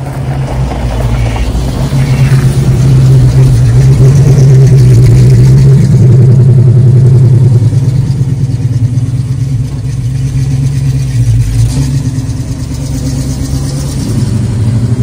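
Engine of a 1969 Pontiac Firebird running with a steady low rumble, loudest in the first half and easing off after the middle, as the car is moved out and driven off.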